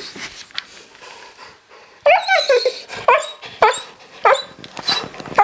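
Bouvier des Flandres whining for attention: a drawn-out whine about two seconds in, then five short, high-pitched barks at roughly half-second intervals.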